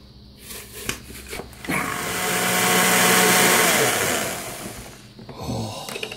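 Countertop blender running for about three seconds, puréeing watermelon chunks into pulp, then winding down. A few knocks come before it starts, and a clatter near the end as the jar is lifted off the base.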